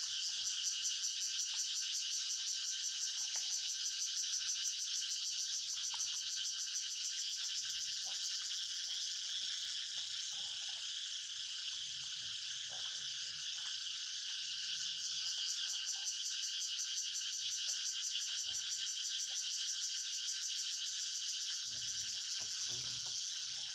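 A dense, steady, high-pitched chorus of calling animals, pulsing rapidly, typical of tropical insects or frogs, with faint low rustles and knocks now and then.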